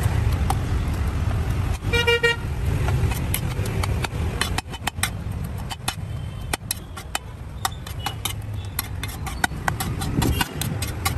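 Metal spatula clicking and scraping on a flat metal griddle, with rapid irregular clicks, as samosa chaat is chopped and mixed. A steady low rumble sits underneath, and a vehicle horn toots briefly about two seconds in.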